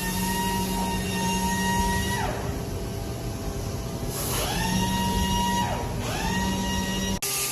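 CNC machining center spindle whining at a steady high speed, spinning down about two seconds in, spinning back up a couple of seconds later, then briefly slowing and speeding up again before the sound cuts off abruptly near the end.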